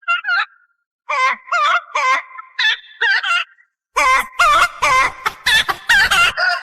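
A quick run of short, wavering clucking calls, about three a second, joined about four seconds in by a thumping beat.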